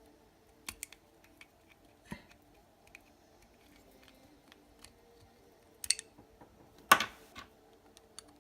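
Small clicks and taps of a Glock 43 pistol slide and recoil spring guide rod assemblies being handled, with a few sharper clacks and the loudest one near the end.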